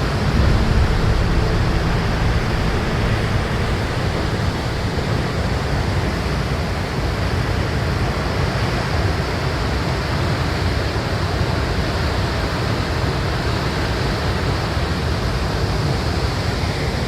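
Ouzoud Falls, about 110 metres of water dropping down the cliffs: a loud, steady rush of crashing water with a deep low rumble. It cuts off suddenly at the very end.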